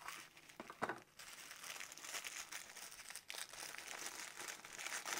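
Hands unwrapping a small gift from crinkled black tissue paper: a quiet papery crinkling and rustling that grows busier after about two seconds.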